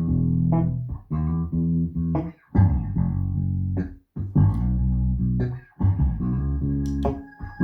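Recorded music with a heavy bass line and plucked strings, played in phrases with short breaks, coming from SLAudio TL loudspeakers driven by a Willsenton R8 valve amplifier and heard in a small room.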